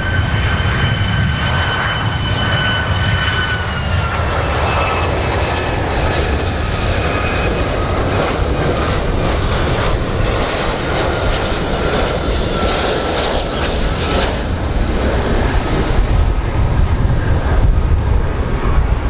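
Boeing 757-200 jet airliner on final approach: engine whine over a low rumble. The whine drops in pitch about four seconds in, slides lower again, and fades out in the second half, leaving the rumble.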